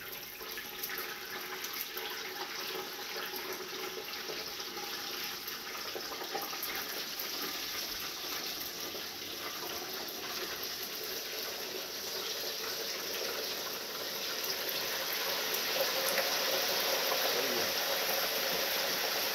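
Hot frying oil at 350 °F bubbling and sizzling as a whole turkey is lowered into a propane turkey fryer pot: a steady hiss that grows louder about three-quarters of the way through as the bird goes under.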